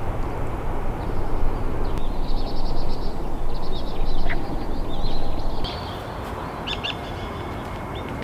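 Small songbirds chirping and trilling in short phrases over a steady rushing background noise, which drops to a lower level about two-thirds of the way through.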